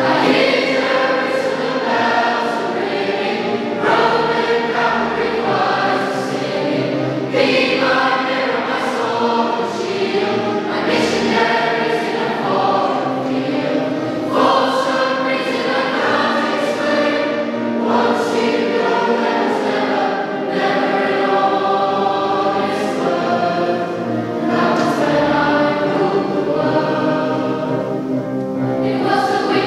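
Large mixed choir of boys' and girls' voices singing together, with piano accompaniment.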